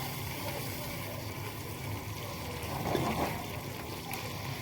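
Water going into a pan of onion-tomato masala on the stove, with a steady hiss of the gravy cooking and a short louder liquid splash about three seconds in.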